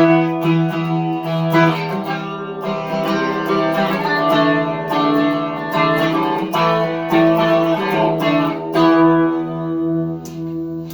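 Electric guitar fitted with GFS Lil' Killers humbuckers, played with the neck pickup split to single coil together with the bridge humbucker, through a chorus effect. It plays ringing chords and notes, starting with a sharp strum.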